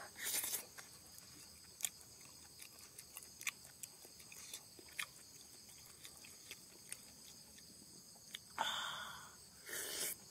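Steady high-pitched insect chorus, with scattered faint clicks and a few short rustling bursts, one near the start and two near the end.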